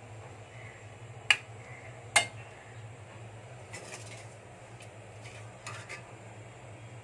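Metal slotted spoon clanking and scraping in a metal kadai while serving cooked fish: two sharp clinks about a second apart near the start, then lighter taps and scrapes as a piece is lifted out.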